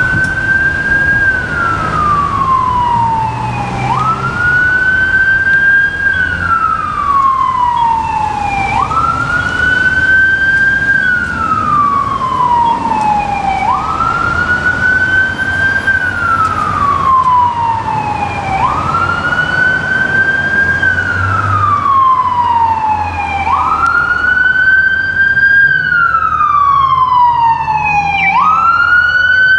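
Fire engine's electronic siren on wail: each cycle climbs quickly to a high tone, holds briefly, then falls slowly, repeating about every five seconds, over the truck's low diesel engine rumble as it approaches. A brief higher sweep cuts in near the end.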